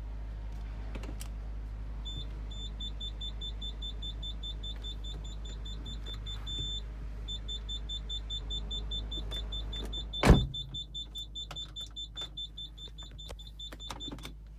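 Car's reverse-gear warning beeping with reverse engaged: a rapid string of high, even beeps that briefly merge into one held tone about halfway through. A steady low hum runs underneath, and a single loud thump comes about two-thirds of the way in.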